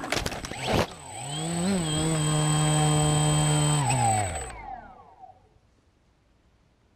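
Quadcopter drone knocked to the ground: a few sharp knocks as it hits and tumbles in the grass, then its motors whine at a steady pitch for about three seconds before winding down to a stop.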